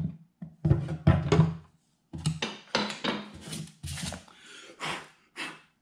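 Wooden jig blocks being handled and knocked against each other and the guitar's wooden top as they are lifted off, in a series of short knocks and rubs.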